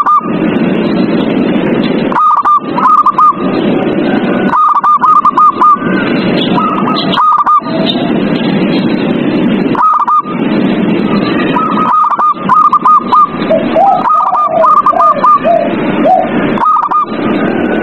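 Zebra doves (perkutut) cooing in short runs of quick, clipped notes, a run every second or two, over a loud, steady background din. Some lower notes join in near the end.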